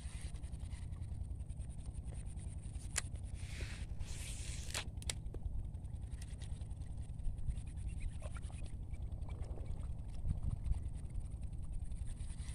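Fishing rod and reel being cast: a few sharp clicks and a brief hissing whir about four seconds in, as of line running off the spool, over a steady low rumble.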